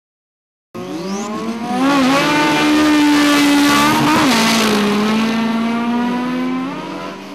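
Two drag-racing cars, one a black Honda Civic EK hatchback with a turbocharged stock four-cylinder on 10 psi of boost, accelerating hard down the strip, engines revving high. The pitch breaks and drops about two seconds and about four seconds in as they shift gears, then the sound fades as they pull away. The sound cuts in suddenly just under a second in.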